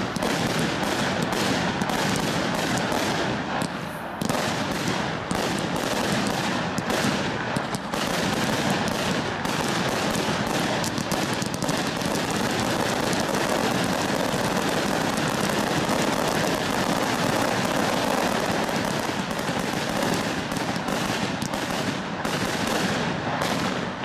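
Category F2 and T1 fireworks firing in quick succession: a dense, steady crackle and hiss of many small pops.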